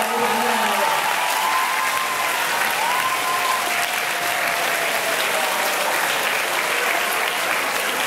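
Audience applauding steadily, with a few voices calling out over the clapping, one rising about three seconds in.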